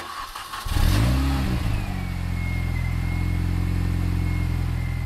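Car engine running: about a second in it revs up and drops back once, then holds a steady run with a thin high whine above it.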